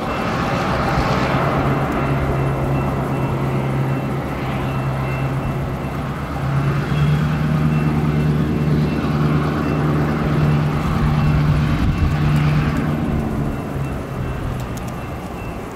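Diesel-electric freight locomotives running at low speed: a steady low engine drone with a hum of several pitches, which grows somewhat stronger about halfway through.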